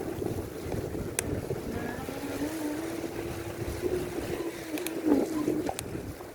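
Wind buffeting the microphone and road rumble while riding a bicycle through a snowstorm, with a steady hum that holds for a few seconds in the middle and a few sharp clicks.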